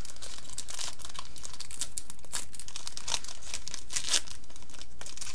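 Foil wrapper of a Yu-Gi-Oh! Duelist Genesis booster pack crinkling and tearing as it is opened by hand, a dense run of irregular crackles.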